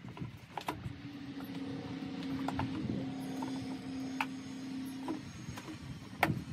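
Scattered sharp clicks and knocks of hands and a tool working at an air compressor's pressure-switch wiring, the sharpest one near the end. A steady hum of unknown source starts about a second in and stops about five seconds in.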